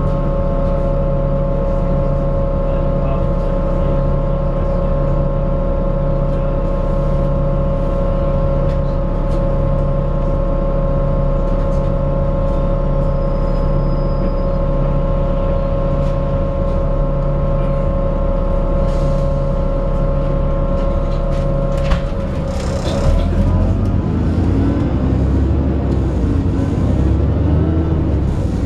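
Alexander Dennis Enviro 400 double-decker bus (ADL Trident 2) idling at a stop, its engine giving a steady hum of several held tones. About 22 seconds in there is a short hiss of air, the tones break off and the bus pulls away, engine pitch rising and falling as it accelerates.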